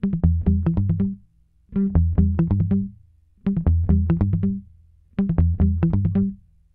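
Background music: four short phrases of quick plucked notes over a bass line, with brief pauses between them.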